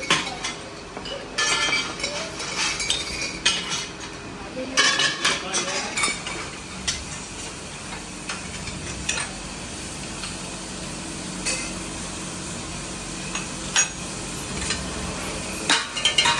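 Metal parts clinking and clattering against one another over a steady hiss of workshop noise. The clinks come thick and fast in the first six seconds, then only now and then, with a quick cluster near the end.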